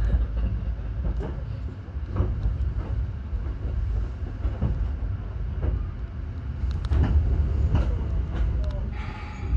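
Hakone Tozan Railway train running, a steady low rumble with irregular sharp knocks from the wheels over the track, and a short hiss near the end.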